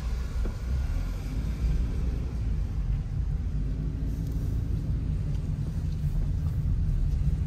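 Car driving, heard from inside the cabin: a steady low rumble of engine and tyres.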